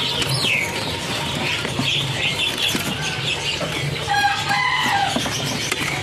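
Many caged songbirds chirping and whistling together, with some wing fluttering, over a low steady hum. A longer, lower falling call stands out about four seconds in.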